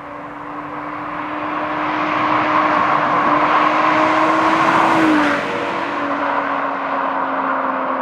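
Ferrari Daytona SP3's naturally aspirated 6.5-litre V12 accelerating past, its note climbing as it grows louder. It is loudest about five seconds in, then drops in pitch as the car goes by.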